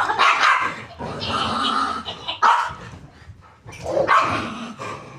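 Pet Labrador dog barking and vocalizing in about four bursts with short gaps between them.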